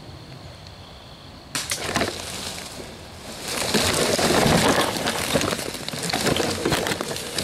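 Rustling and crackling of brush and twigs with many small snaps, starting suddenly about one and a half seconds in and loudest in the middle: a person moving quickly through dense undergrowth, the vegetation brushing against the camera.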